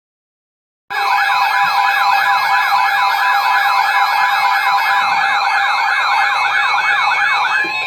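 Electronic siren in a fast yelp, its pitch sweeping up and down about three times a second. It starts about a second in and stops just before the end.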